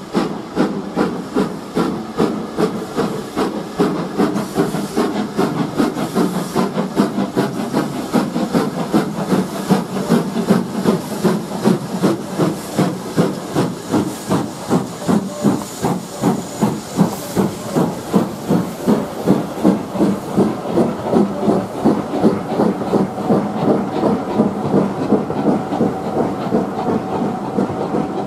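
LMS Black Five two-cylinder steam locomotive working a train of coaches past: an even exhaust beat of about two to three chuffs a second, with steam hiss.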